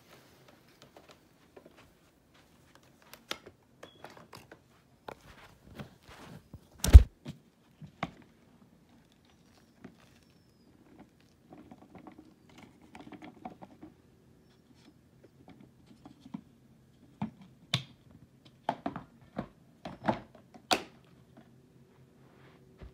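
Scattered knocks, clicks and light rustling of things being handled close to the microphone, with one loud thump about seven seconds in and a run of sharper knocks near the end.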